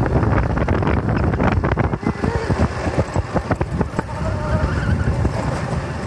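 Motorcycle running at low speed along a rough dirt track, with wind on the microphone. Many short knocks and rattles in the middle of the stretch as the bike goes over bumps.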